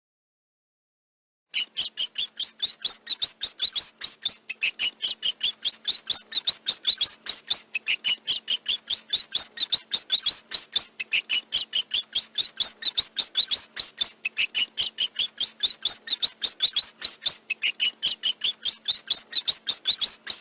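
Rat squeaking: a fast, even run of short high-pitched squeaks, about five a second, that starts after a second and a half of silence.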